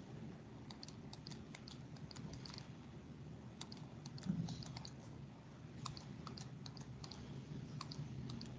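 Faint, irregular light clicks, several a second, from dotted lines being tapped out one dot at a time with a pen or mouse on a digital whiteboard, over a low steady hum. A soft bump sounds about four seconds in.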